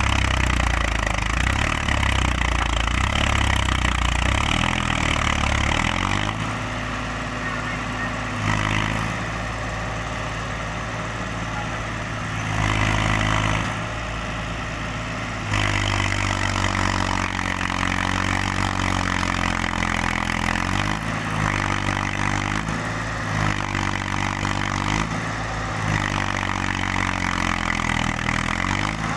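Mahindra 275 DI tractor's three-cylinder diesel engine working under load, pulling a soil-loaded trolley. It runs hard for the first six seconds, then eases, and in the second half the revs rise and fall several times as the throttle is worked.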